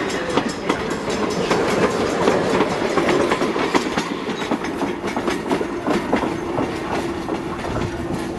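Railroad passenger cars and a caboose rolling past at close range, their steel wheels clicking over the rail joints in a quick clickety-clack over a steady rumble. The clicks thin out in the second half as the last car goes by.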